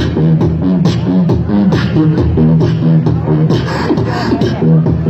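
Beatboxing amplified through a handheld microphone and portable loudspeaker: a fast, steady rhythm of sharp vocal drum clicks over held low bass notes that step between pitches.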